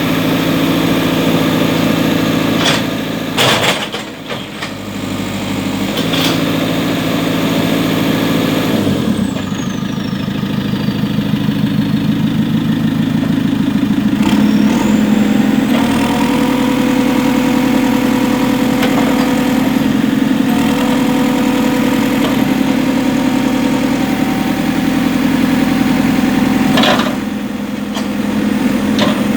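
Four-cylinder diesel engine of a JCB 3CX backhoe loader running, its pitch shifting several times as the engine speed changes. A high whine falls away about a third of the way in, and there are a few brief knocks.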